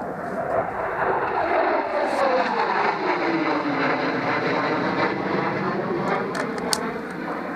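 Low-flying aircraft passing overhead: a loud rushing drone that swells about a second in, its pitch falling as it goes by, then easing off slightly near the end.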